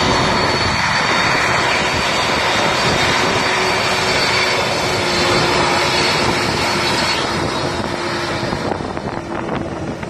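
Boeing 747 airliner's four jet engines running steadily at taxi power as the jet swings round onto the runway for takeoff: a loud, continuous rush with a high whine, easing slightly near the end.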